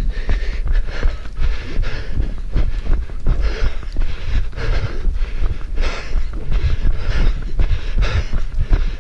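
A runner's footsteps at running pace, close to the microphone, with hard, rhythmic breathing and a heavy low thumping throughout.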